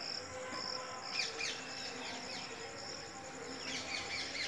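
Insects trilling in steady, evenly repeating pulses, joined by birds chirping in quick falling notes about a second in and more thickly near the end.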